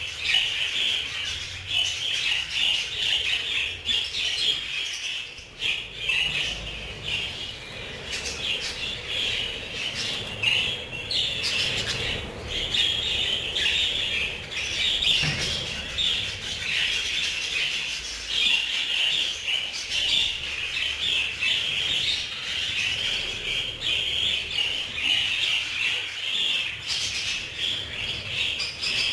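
A flock of budgerigars chattering and chirping continuously, many birds at once in a dense warbling chorus.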